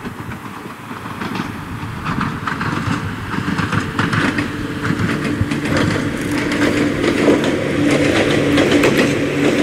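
Ohmi Railway two-car electric train (set 104F) running along the line, with a steady hum and clattering wheels. It grows steadily louder as it approaches and draws level.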